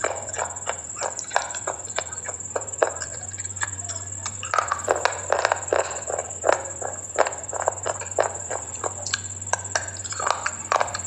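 Close-miked chewing and crunching of something hard and brittle: a dense, uneven run of sharp crackling crunches, several a second, with a few louder snaps, over a steady faint high whine and low hum.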